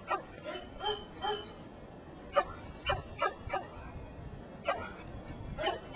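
Collies barking: about nine short, sharp barks and yips in uneven bunches.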